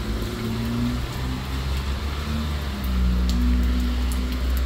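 A motor vehicle running with a steady low rumble and a hiss of road or wind noise over it.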